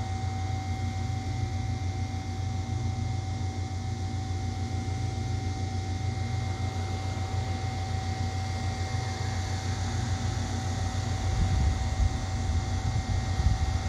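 Steady outdoor background hum with two constant tones over a low rumble, joined from about two-thirds of the way in by a vehicle on the road, growing louder toward the end.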